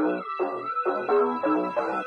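Music: the instrumental intro of a hip-hop track, a melody of short, evenly repeated notes with no vocals yet.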